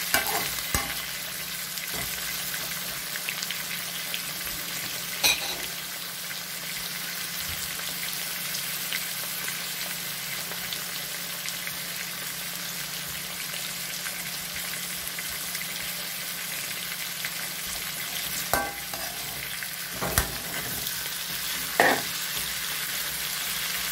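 Chicken and vegetables sizzling steadily in an aluminium wok. A few sharp knocks from a metal spatula striking the wok, with more of them near the end as the pan is stirred.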